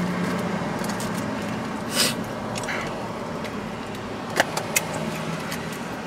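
Steady hum of a car cabin with the car's engine or ventilation running, a short noisy sniff-like sound about two seconds in, and a few small sharp clicks a little after four seconds.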